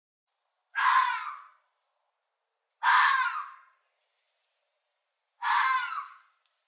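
An animal's harsh, hoarse scream, given three times about two seconds apart, each call under a second long and trailing off at the end.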